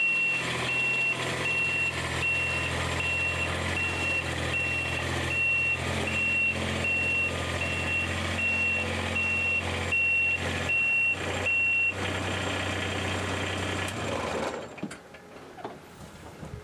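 Kubota RTV-X900 utility vehicle's three-cylinder diesel engine running while its reverse alarm beeps steadily, about two beeps a second. The beeping stops about twelve seconds in, and the engine shuts off a couple of seconds later.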